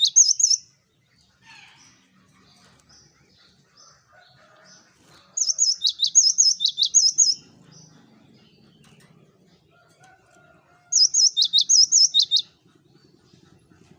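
Cinereous tit (gelatik batu) singing: loud bursts of quick, repeated high two-note phrases, each burst about two seconds long, coming three times with pauses between.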